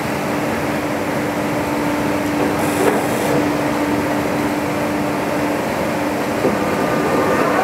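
UNION BFKP 130 CNC horizontal boring mill running under power with its spindle turning: a steady mechanical hum with a constant tone, and a light knock about three seconds in. Near the end a rising whine begins as the drive speeds up.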